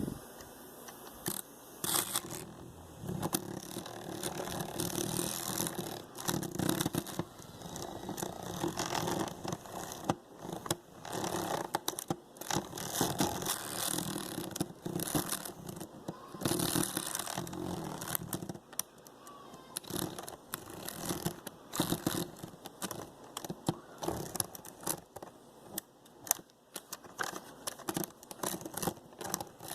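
Homemade toothbrush-handle lock pick and tension wrench scraping and clicking in a small safe's lock as it is picked. Many sharp irregular clicks and rasping scrapes, mixed with rustling handling noise close to the microphone.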